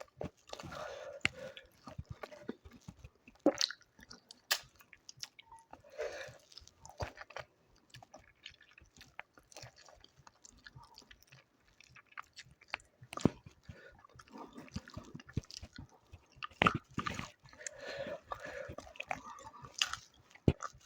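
A person chewing and smacking food close to the microphone, with irregular sharp mouth clicks and a few louder crunches.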